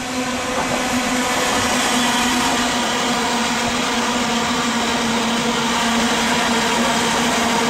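London Midland Class 350 Desiro electric multiple unit passing at speed: a steady rush of wheels on rails with a steady whine from its traction equipment, swelling as the train arrives.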